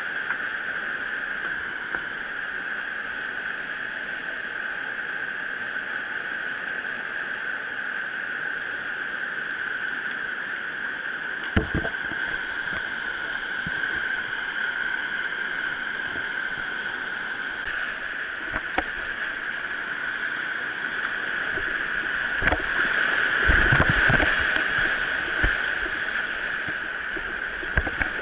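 Steady rush of fast-flowing stream water over rapids, with a few low knocks about twelve seconds in and again near the end.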